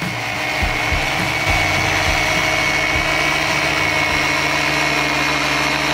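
Electric rotary polisher running at a steady speed with a wool buffing pad, a constant high whine over a motor hum, while compounding oxidized paint. It cuts off abruptly near the end.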